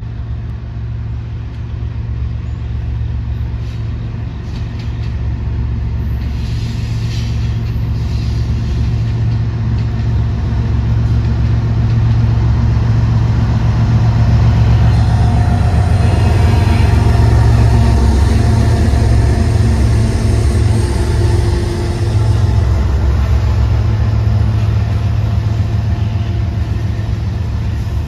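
Freight train led by two BNSF diesel locomotives approaching and passing close by: a deep engine rumble that grows louder over the first dozen seconds and stays loud as the locomotives and then boxcars roll past.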